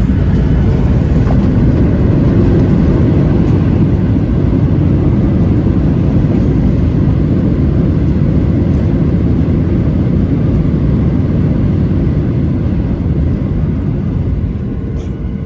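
Boeing 737-900ER airliner with its CFM56-7B engines, a steady loud low rumble that eases slightly near the end.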